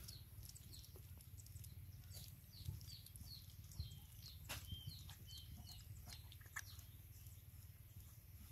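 A small bird chirping faintly in a quick series of short, high, falling chirps, a few per second, with a few faint clicks among them.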